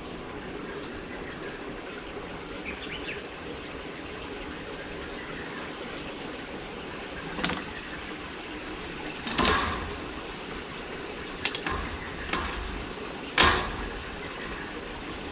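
Kittens playing around a plastic PVC pipe tunnel and a wire cage panel: about five short knocks and bumps in the second half, the loudest near the end, over a steady background hiss.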